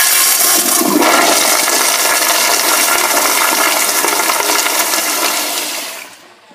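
Crane commercial toilet with a flushometer valve flushing: a loud, powerful rush of water swirling through the bowl, fading out about six seconds in.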